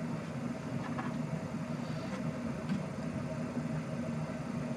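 Steady low hum of room background noise, with a few faint clicks and taps from an acoustic guitar being handled and turned over.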